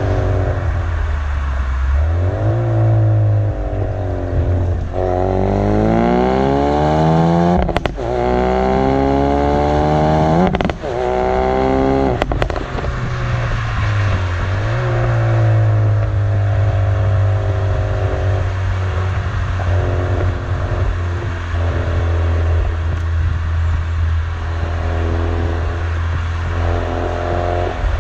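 Exhaust of a Ford Focus RS MK3's 2.3-litre turbocharged four-cylinder, heard from behind the rear bumper under hard acceleration: the engine pitch climbs through several gears, with a sharp crack at the gear changes. In the second half it settles into steadier cruising with small rises and falls in revs.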